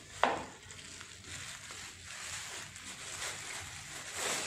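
Thin plastic packaging bag crinkling and rustling as hands pull it off a walking stick. A single sharp tap comes just after the start.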